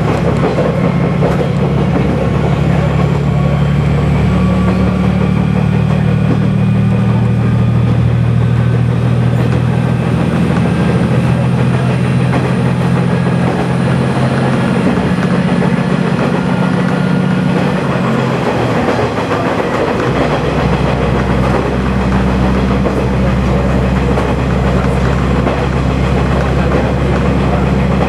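KiHa 120 diesel railcar running along the line, heard from the driver's cab: a steady diesel engine drone under the running noise of the wheels on the rails. The engine note deepens about twenty seconds in.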